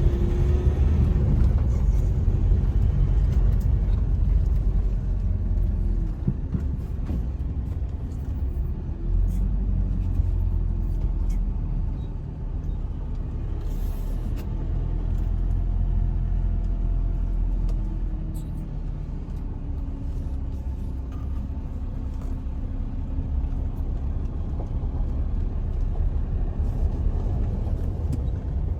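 A car driving on the road: a steady, low engine and tyre rumble with the pitch shifting gently.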